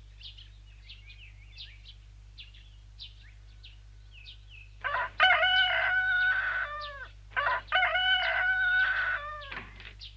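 Rooster crowing twice, two long calls one after the other, with small birds chirping before them.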